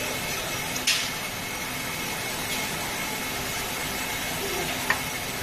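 Automatic cabin air filter pleating line running: a steady machine hum, with a short hiss about a second in and a sharp click near the end.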